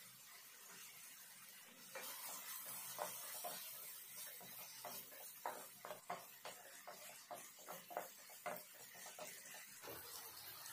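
Chopped tomatoes landing in hot oil and fried onions in a non-stick kadai, sizzling from about two seconds in, then a wooden spatula stirring and scraping the pan in quick, irregular strokes until near the end.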